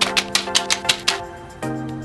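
Background music: sustained chords over a quick, steady beat of sharp hits. The beat drops out about a second in, and a new chord comes in near the end.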